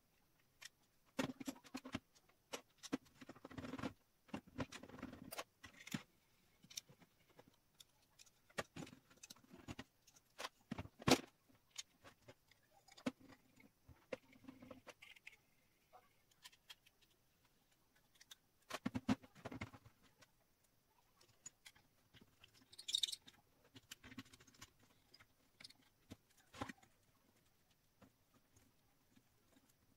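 Irregular clicks, knocks and light rattles of small metal parts being handled and fitted together on a table: rotary engraver roller brackets, black aluminium extrusion, screws and hex keys. A few louder knocks are scattered through.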